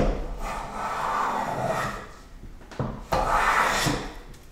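A metal hand plane cutting shavings along the edge of a maple board in two strokes: a long one of about two seconds, then a shorter one starting about three seconds in.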